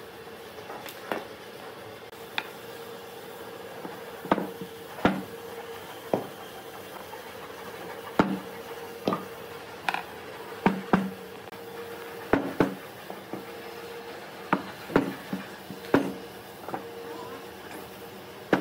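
Irregular knocks and taps of wooden tree-stump slices and a hand tool against the wooden workbench and frame while sawdust is worked over them, over a steady hum.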